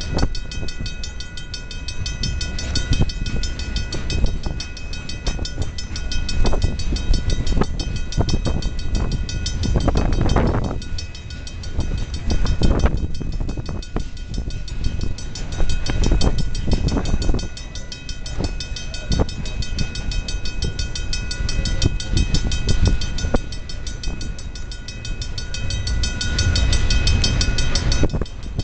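Freight cars rolling through a level crossing: a steady low rumble of wheels on rail with irregular clanks and clacks as wheels cross rail joints, swelling louder twice. Over it a level-crossing bell rings on steadily with a fast, even beat.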